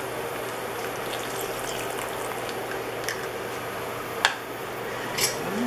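Soy-garlic sauce simmering in a pot, a steady bubbling hiss, with a few sharp clicks; the loudest is about four seconds in.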